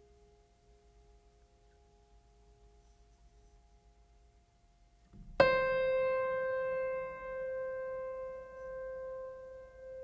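Slow, sparse background music. Faint held tones die away, then about halfway through a single piano note is struck and rings on, slowly fading.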